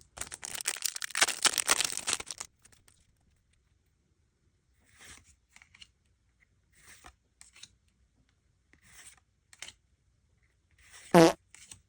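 Foil Pokémon booster pack being ripped open: a dense crackling tear over the first two and a half seconds. Then a few soft, short swishes a second or two apart as the cards are slid through, and one short loud pitched sound near the end.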